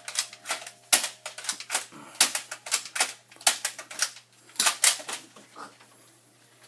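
Sharp, irregular clicks and snaps, a few a second, thinning out after about five seconds: Nerf foam-dart blasters being fired in quick succession.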